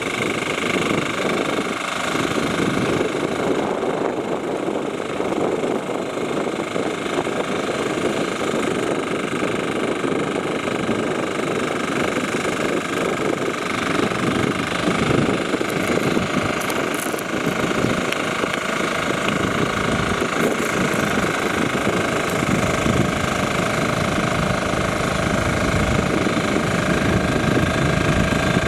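Small crawler tractor's engine running steadily as it puddles a flooded rice paddy with its rear rotary tiller.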